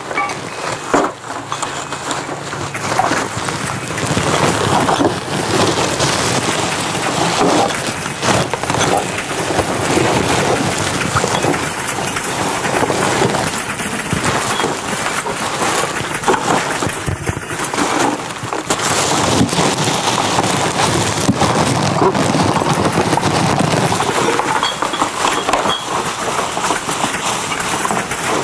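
Packaging waste being crumpled and handled: a continuous, dense crackling and rustling made of many fine crackles.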